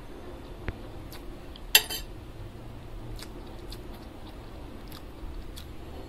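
Close-miked mouth sounds of a person eating noodles: wet chewing clicks, with a loud short crackle a little under two seconds in.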